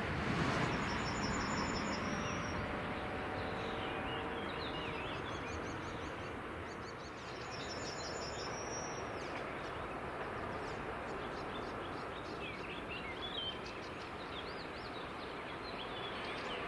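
Small birds chirping and trilling over a steady outdoor background noise, while the rumble of a receding train fades away over the first few seconds.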